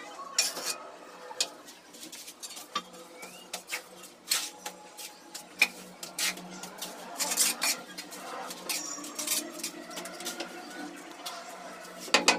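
Tile-setting work: hand tools tapping, clicking and scraping on ceramic wall tiles and cement mortar, in irregular sharp knocks with short scrapes between them, over a faint steady hum.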